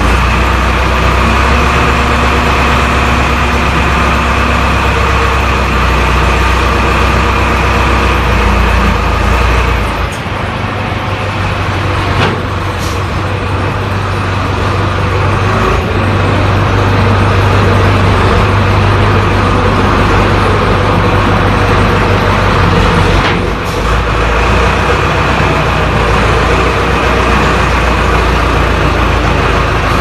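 Diesel engine of an XD926G wheel loader running steadily under load as it lifts and carries a stack of lumber on its forks, its note shifting about ten seconds in and again near the end.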